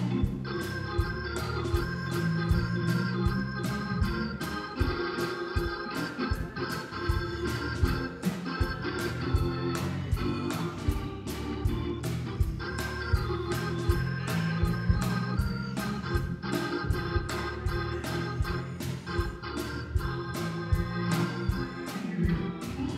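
Organ playing held chords over a steady percussive beat.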